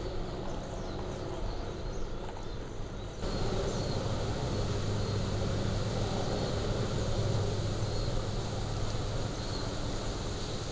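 Kilauea fissure lava fountain: a steady rushing noise with a strong low rumble. About three seconds in it abruptly becomes louder and deeper.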